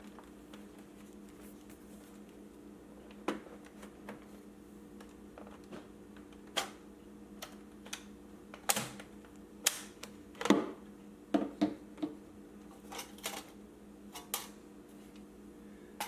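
Scattered sharp clicks and taps from handling a laptop's plastic case and parts, busiest in the middle, over a steady low hum.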